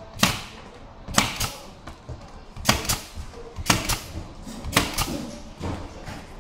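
Pneumatic staple gun firing 1¼-inch staples into the edges of a cabinet panel: about six sharp shots roughly a second apart, some of them doubled.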